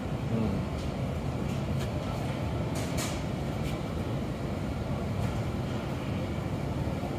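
Steady low rumble of a supermarket's background hum, with a few faint clicks.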